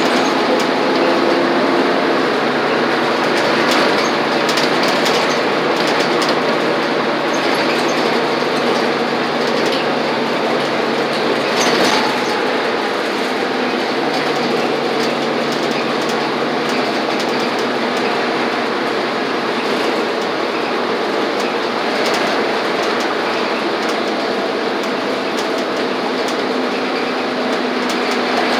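Inside a city transit bus driving at road speed: steady engine and drivetrain drone with tyre and road noise, and scattered light rattles of the bus's fittings, with a louder knock about twelve seconds in.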